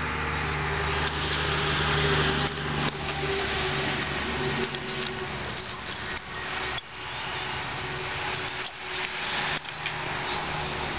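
Steady low machine hum with a hiss over it, and a few soft knocks and bumps from handling.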